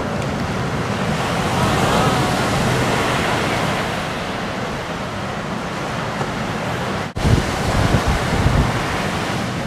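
Ocean surf breaking and washing in as a steady rush, with wind buffeting the microphone. The sound breaks off for an instant about seven seconds in, and after that the wind rumble on the microphone is stronger.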